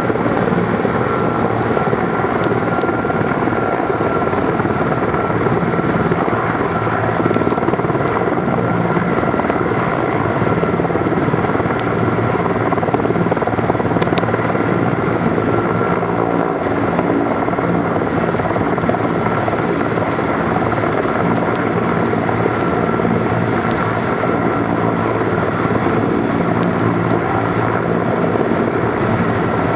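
Firefighting helicopter hovering low over a pond to take on water, its rotor beating steadily under a high turbine whine.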